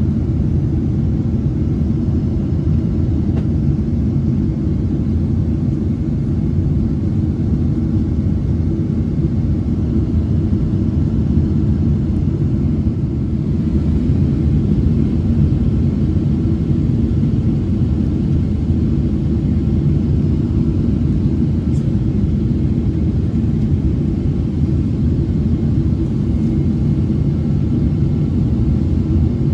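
Cabin noise inside a Boeing 777-200 on its descent to land: a steady, deep rumble of engines and airflow, with the flaps extended.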